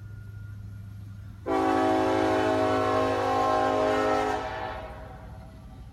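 Diesel freight locomotive's air horn sounding one long blast of about three seconds, a loud chord of several tones that starts abruptly and then fades away. Under it runs the low, steady rumble of the passing diesel locomotives.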